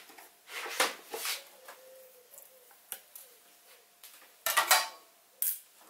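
Metal clicks, knocks and scrapes from a screwdriver and the sheet-steel side cover of a Sieg SC4 lathe's headstock as the cover is unscrewed and taken off. They come as a handful of separate knocks, the loudest about four and a half seconds in.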